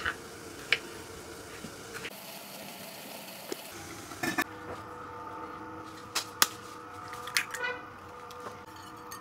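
Kitchen prep sounds: a few sharp clicks and knocks of a knife on a wooden cutting board, a steel steamer pot and lid clinking, and eggs being cracked against a bowl near the end, over a faint steady hum.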